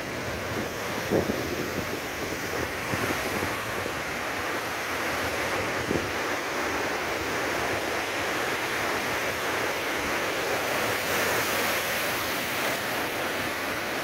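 Heavy storm surf breaking on the shore: a steady rush of churning seawater, with wind buffeting the microphone in a few short thumps early on.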